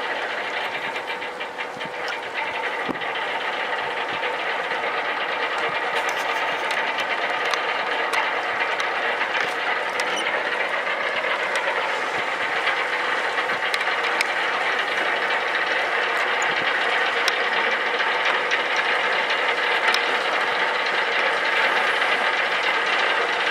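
Waterjet-propelled coast guard patrol vessel running under power: a steady engine and waterjet drone with several held tones over a rushing noise, dipping slightly in the first couple of seconds, then constant.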